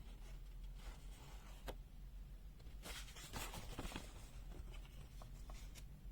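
Light handling sounds: rustling like paper or packaging being moved, with a few sharp clicks and a longer burst of rustling about three seconds in. A steady low electrical hum lies under it.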